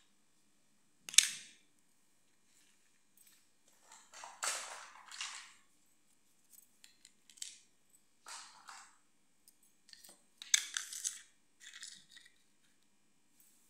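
Small plastic toy pieces being handled and set down on a hard floor. There is a sharp click about a second in, then several short spells of clattering and handling noise with quiet gaps between them.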